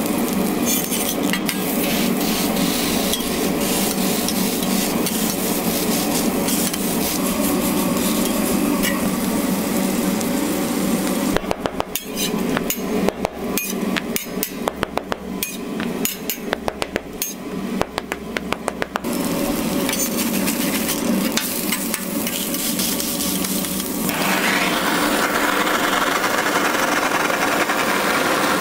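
Food sizzling on a steel griddle, then several seconds of rapid metal clacking as a blade knocks and scrapes on the steel plate. About four seconds before the end the steady rush of a blowtorch flame sets in.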